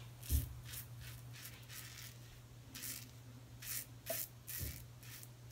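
Double-edge safety razor with a Gillette 7 O'Clock Sharp Edge blade scraping through lathered stubble on the neck: several short, faint scratchy strokes.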